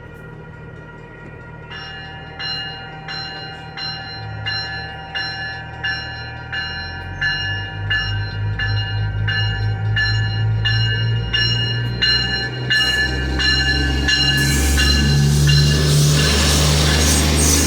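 A railroad crossing bell starts ringing about two seconds in, about two strokes a second. Under it a train's low rumble comes in and grows steadily louder. Near the end the train arrives, and loud wheel and rail noise takes over from the bell.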